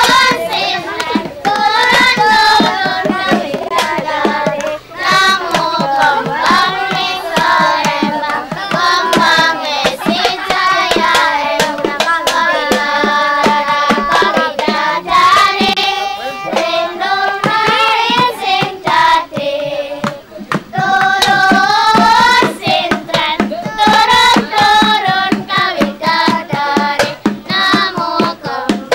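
A group of voices, children's among them, singing a traditional Javanese sintren song, with steady rhythmic hand clapping and percussion accompaniment.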